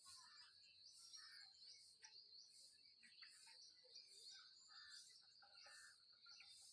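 Near silence with faint birds chirping and insects: a steady high-pitched insect trill and a soft hiss that pulses about one and a half times a second.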